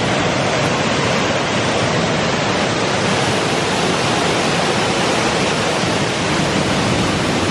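Steady rush of Bond Falls, a wide waterfall cascading over rock ledges into a shallow, rocky river.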